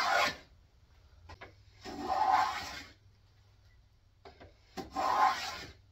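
Ohio Tool #28 wooden plough plane cutting a groove in a board: two full scraping strokes of about a second each, after the tail of the previous one, with short pauses between. The groove is nearly at full depth, close to where the plane's steel depth stop bottoms out.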